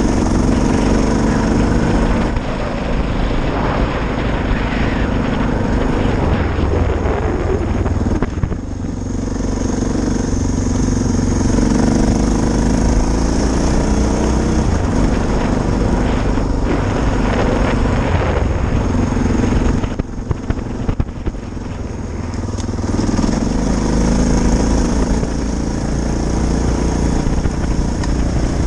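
Suzuki DR650's single-cylinder four-stroke engine running as the bike is ridden, its pitch rising and falling with the throttle. The engine eases off about 8 seconds in and again for a few seconds around 20 seconds in.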